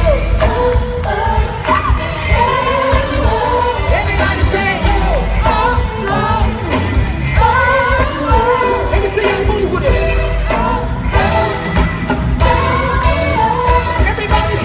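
Live gospel music: voices singing over a band with heavy bass and drums.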